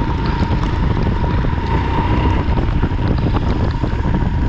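Wind buffeting the microphone on a moving Royal Enfield Himalayan motorcycle, with its single-cylinder engine running steadily underneath.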